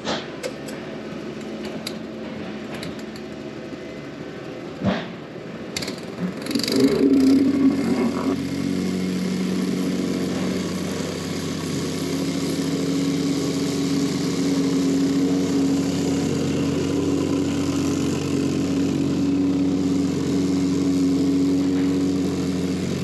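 Mustang vibratory plate compactor's small petrol engine starting up about seven seconds in, then running steadily as the plate compacts crushed rock.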